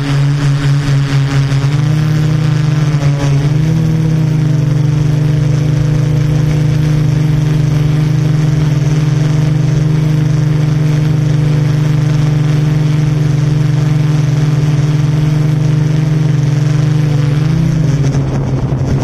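Yuneec Typhoon Q500 4K quadcopter's motors and propellers humming steadily. The pitch steps up twice in the first few seconds and dips briefly near the end as the motors change speed.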